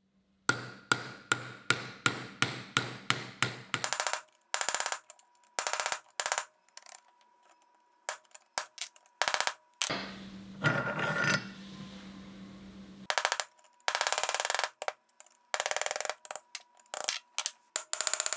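Hammer tapping a pin punch to drive a fork-shaped retaining pin out of a steel 4-jaw lathe chuck: about a dozen quick metallic strikes, roughly four a second, in the first few seconds. After that come scattered metal clicks and clinks.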